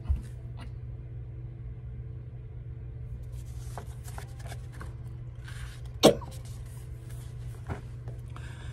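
Steady low electrical or fan hum in a small room, with faint rustles and light taps of a paperback coloring book being handled and its pages turned, and one sharp tap about six seconds in.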